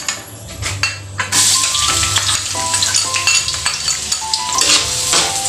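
Chopped onion hitting hot oil in a large metal wok, breaking into a loud, steady sizzle about a second in, as it is stirred with a spatula.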